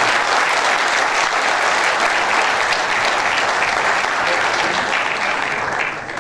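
Audience applauding steadily in a hall, dying away near the end.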